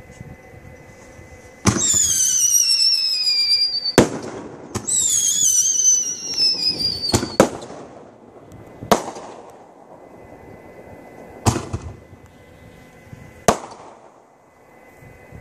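Consumer fireworks: two whistles that fall steadily in pitch, each ending in a sharp bang, followed by three more single aerial shell bursts about two to two and a half seconds apart.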